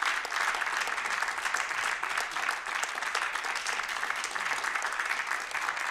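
Audience applauding, a steady dense clapping that holds at one level.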